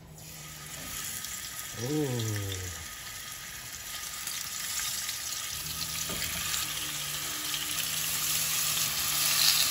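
Marinated fish pieces laid into hot oil in a nonstick frying pan, sizzling as they start to shallow-fry. The sizzle grows steadily louder as more pieces go into the pan.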